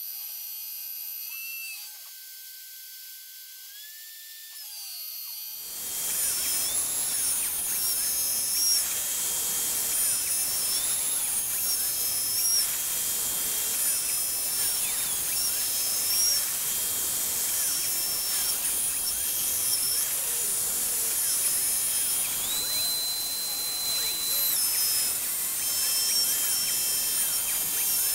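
C-Beam-based CNC router milling aluminium: the spindle runs steadily as the end mill cuts, with high whining tones that step up and down in pitch as the machine moves. About six seconds in the sound becomes louder and fuller.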